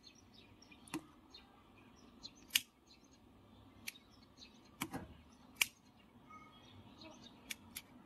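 Scattered sharp clicks and taps of hand tools and test gear being handled on a workbench, about eight over several seconds, over a low background hum.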